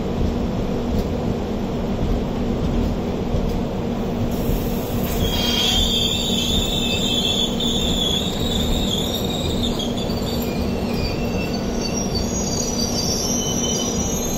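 A passenger train's coach wheels squealing against the rails as it rolls slowly past, over a steady low rumble and hum. The shrill squeal sets in about five seconds in, is loudest for the next few seconds, then thins to fainter, higher squeals near the end.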